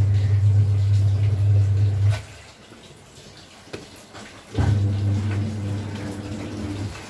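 A low, steady droning hum that comes on sharply twice, each time for about two and a half seconds, and cuts off abruptly.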